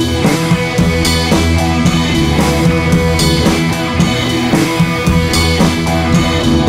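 Background rock music with a drum kit and guitar, at a steady beat.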